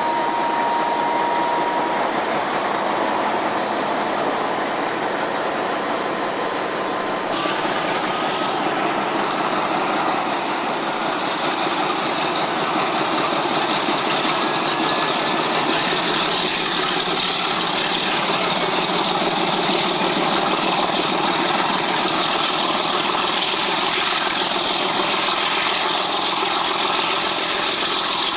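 A Montreal Locomotive Works MX627 diesel-electric locomotive working under load as it hauls a passenger train, heard from a carriage window behind it: a steady, loud engine sound mixed with wind and rolling noise. A faint whine rises slightly in pitch over the first ten seconds or so.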